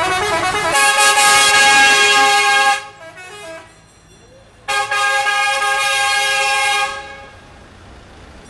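Road tourist train's horn blowing two long, multi-tone chord blasts: the first runs on to about three seconds in, and the second starts near the middle and lasts about two seconds. Low street and engine noise fills the gap between them and the end.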